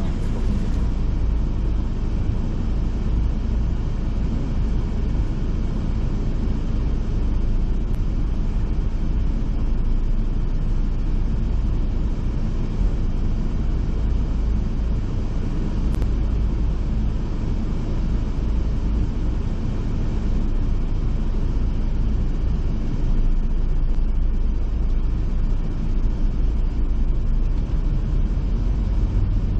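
Steady low rumble of a moving tour bus, its engine and road noise heard from inside the cabin.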